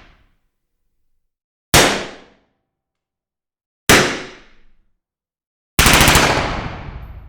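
Gunshots recorded indoors: two single shots about two seconds apart, each followed by a short room echo, then a rapid burst of automatic fire near the end whose echo trails off.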